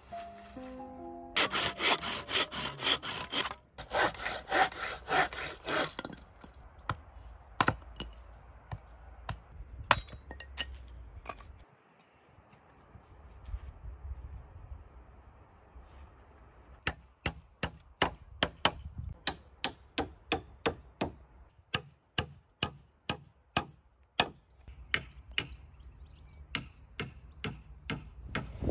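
Hand tools working wood: a few seconds of quick rasping strokes like sawing, then scattered clicks. Later comes a long run of sharp, evenly spaced knocks, about two or three a second.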